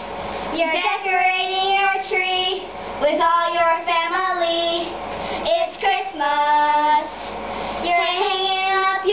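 Two young girls singing a self-written Christmas song together without accompaniment, in phrases of long held notes with short breaths between them.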